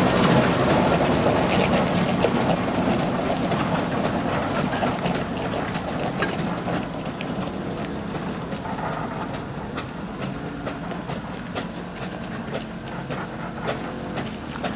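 Fowler steam road locomotive under way, a steady mechanical clatter with many irregular knocks, fading steadily as it draws away.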